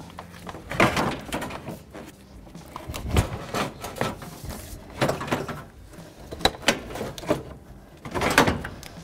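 Irregular knocks, clunks and scrapes as a car radiator is worked down into place in the engine bay, bumping against the surrounding parts.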